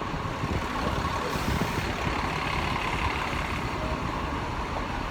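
Steady street traffic noise, with a heavy vehicle's engine running.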